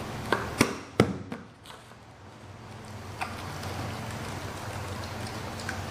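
Handling a tin of powdered milk and a plastic baby bottle: a few sharp clicks and knocks in the first second, as the tin's lid is worked, then a steady soft swishing as the bottle is rolled between the palms to mix the milk.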